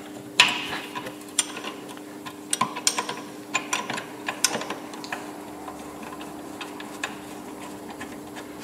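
Irregular metallic clicks and ticks of spanners working the lower guide bolt of a Renault Megane 2 rear brake caliper, thinning out after about five seconds, over a faint steady hum.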